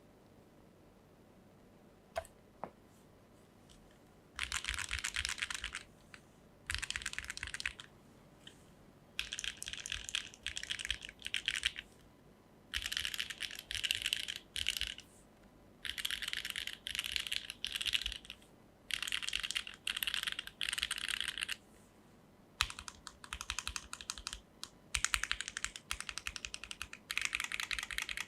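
Typing on a Neo80 mechanical keyboard with HMX Sonja HC switches, a carbon-fibre plate, gasket bean mount, no foams and Keykobo BOW keycaps. Rapid keystrokes come in runs of one to two seconds with short pauses between. The first few seconds are near silent apart from a couple of single key clicks.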